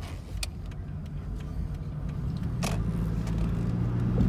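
Cabin noise of a Toyota Prius on the move: a steady low road and drivetrain rumble that builds, with a low hum that grows stronger and steadier from about halfway through. Two sharp clicks cut through, one near the start and one about halfway.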